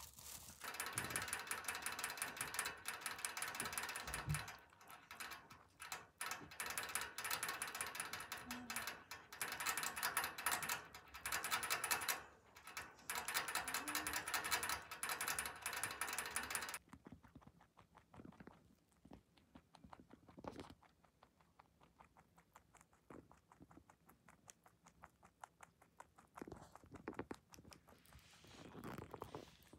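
A Netherland dwarf rabbit drinking from the nozzle of a hanging water bottle: a fast, steady clicking rattle with a few short breaks, which cuts off suddenly a little past halfway. After that there are only faint, scattered small clicks.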